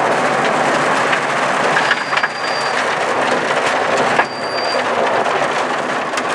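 Audi 80 quattro rally car heard from inside the cabin at speed on a gravel stage: the engine runs hard over a steady roar of tyres, and loose gravel clatters against the underbody. The sound dips briefly about four seconds in, as the car slows for a tight turn.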